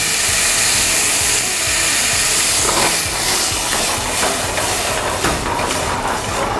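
White wine hissing and sizzling as it boils in a hot saucepan of sautéed prosciutto and onion, reducing, with a few small pops.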